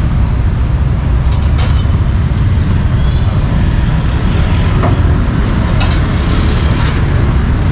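Steady low rumble of street traffic, with a few sharp knocks of a cleaver cutting through grilled sausage onto a wooden chopping block, a couple early on and more near the end.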